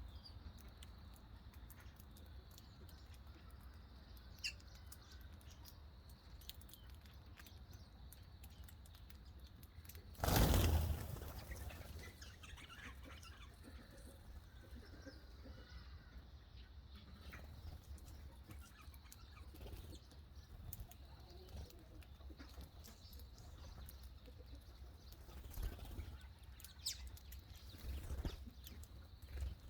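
Small birds chirping now and then, with a loud burst of wing flapping about ten seconds in and a few shorter flutters near the end.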